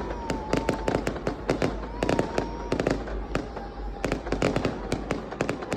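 Many fireworks and firecrackers going off at once in a rapid, irregular crackle of sharp bangs, several a second, with a held tone sounding on and off beneath them.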